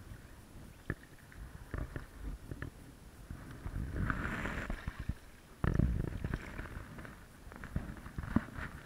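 Stand-up paddle strokes on a lake: water swishing and sloshing around the paddle blade, with scattered knocks and clicks from the paddle. Two louder low rumbling swells come just before and just after the middle.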